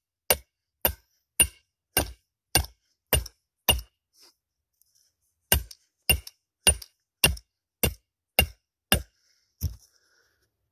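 Hammer blows on a steel stake driver, driving a trap's chain stake into the ground: sharp, evenly spaced metal-on-metal strikes about two a second, seven of them, a pause of about a second and a half, then eight more.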